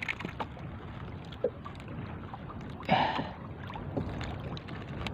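Sea water lapping against a small wooden outrigger fishing boat, with light wind and faint ticks from hands handling the line and hook. There is one brief louder sound about three seconds in.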